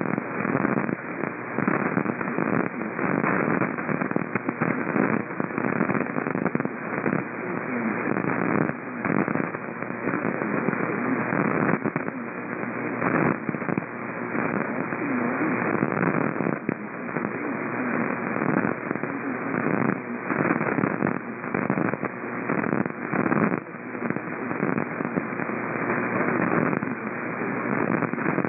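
Radio static from a receiver with a narrow audio band: a steady crackling hiss packed with rapid clicks and pops, and no clear voice coming through.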